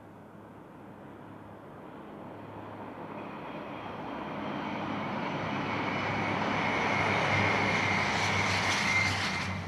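Virgin Voyager diesel-electric multiple unit approaching and running past: a steady drone of its underfloor diesel engines with running noise, growing louder over several seconds. A high whine comes in and is loudest near the end.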